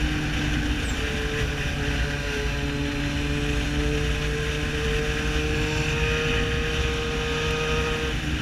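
Yamaha XJ6 Diversion's inline-four engine, fitted with a full aftermarket exhaust, running steadily at cruise with its pitch creeping slowly upward, over a low rumble.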